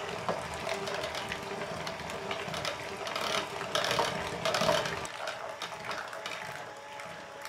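Electric hand mixer running, its beaters whipping pastry cream and butter in a stainless steel saucepan: a steady motor whine with beaters clicking and knocking against the metal pan. The lower part of the sound thins out about five seconds in.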